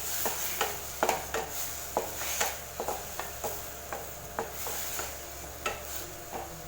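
A spoon stirring and scraping around a pan while ground masala paste sautés in hot oil over medium flame, with a soft sizzle under irregular scrapes and knocks about twice a second.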